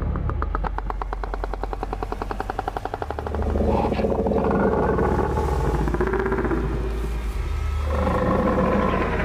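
Film soundtrack effects: a fast, even clicking rattle of about ten clicks a second for roughly three seconds, then low wavering creaking tones that swell, fade and swell again.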